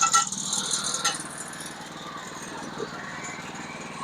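Sawmill engine running steadily, with a sharp click about a second in.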